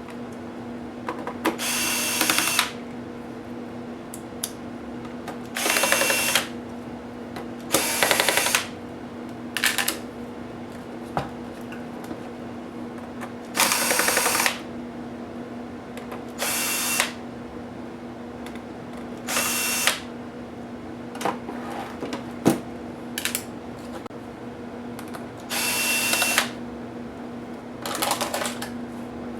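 Small electric screwdriver whirring in short bursts, about nine in all, each under a second, backing screws out of a laptop. Small clicks sound between the bursts over a steady low hum.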